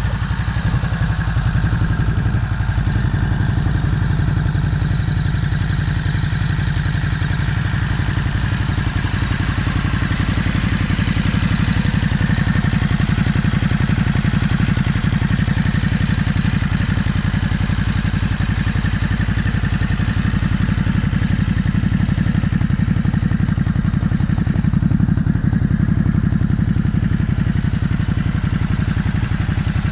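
Ducati Hypermotard 950 SP's 937 cc L-twin engine idling steadily through its exhaust, an even, rapid low pulse with no revving.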